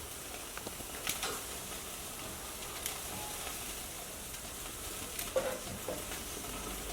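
Food sizzling on a barbecue grill, a steady hiss with a few light clicks.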